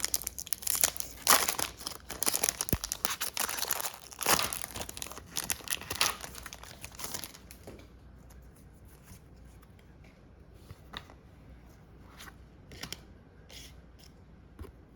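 A foil-wrapped Pokémon card booster pack being torn open and crinkled for about the first seven seconds, then quieter scattered soft clicks as the cards are handled.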